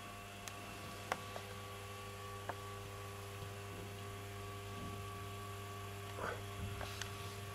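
Steady electrical mains hum from a powered-up Rock-Ola Rhapsody 160 jukebox with no record playing, with a few light clicks, the sharpest about a second in.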